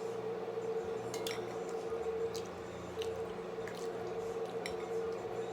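Wet, squishy chewing of broccoli coated in butter sauce, with a few small clicks, over a steady background hum.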